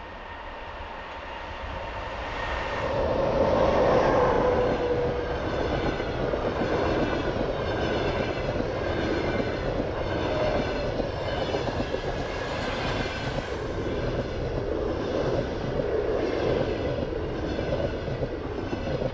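EP20 electric locomotive and its train of passenger coaches passing on the track. The noise builds to its loudest about four seconds in, then holds as a steady rumble with a repeating rise and fall from the coaches' wheels.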